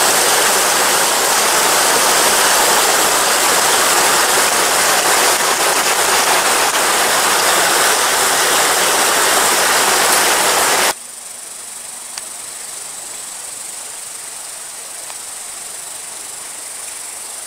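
Water rushing steadily over a small rocky cascade in a mountain stream, loud and even. It cuts off abruptly about eleven seconds in. A much quieter background follows, with a steady high-pitched insect trill.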